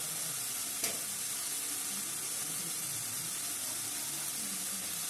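Onion and spice paste sizzling steadily in hot oil in a kadai as the masala fries, with one brief tap about a second in.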